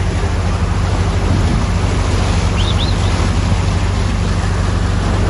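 Boat engine running steadily, a low hum under a constant rush of wind and water noise.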